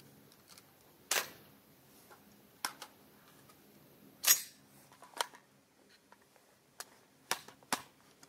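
Sharp metallic clicks and clacks of an AR-10 pistol's action and magazine being worked by hand to clear a feed jam, about eight of them spread unevenly, the loudest about four seconds in.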